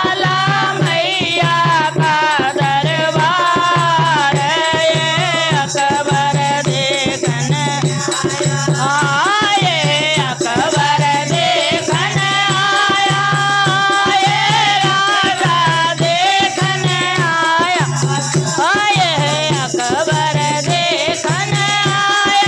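Women's voices singing a Hindi devotional bhajan together, accompanied by a dholak hand drum beaten in a steady, regular rhythm.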